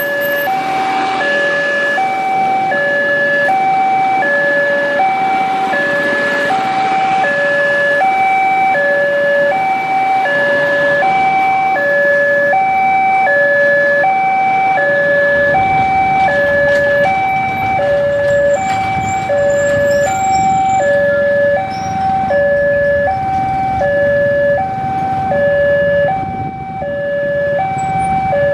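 Railway level-crossing warning alarm sounding a steady two-tone signal, high and low notes alternating about every half second, while the crossing barriers are lowered and closed for an approaching train. A low rumble joins about halfway through.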